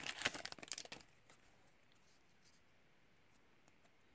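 Foil card-pack wrapper crinkling and being handled for about a second, then near silence.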